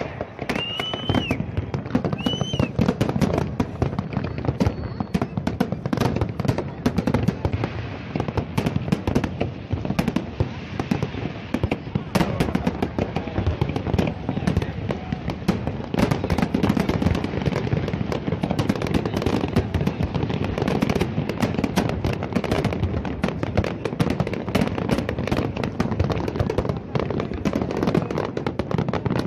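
Large fireworks display going off continuously: a dense, unbroken run of bangs and crackling shell bursts.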